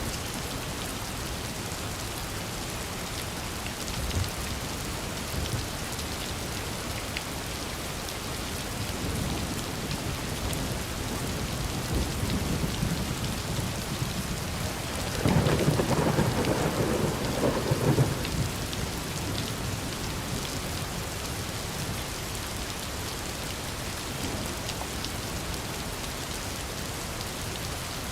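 Steady rain falling, with a roll of thunder that builds and rumbles for a few seconds about halfway through.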